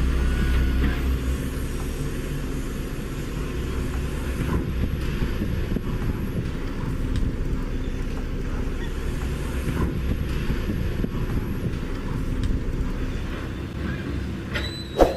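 Steady low mechanical rumble, like a motor or engine running, with a single sharp ringing ding near the end.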